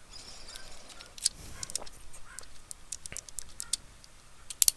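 Small scattered clicks and scrapes of a laptop RAM module being handled and fitted into a memory slot, with a sharp double click near the end.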